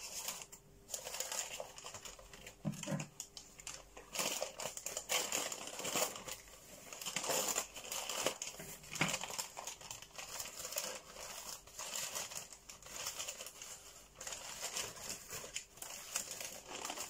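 Newspaper wrapping being unfolded and crumpled by hand, a continuous irregular crinkling and rustling of paper.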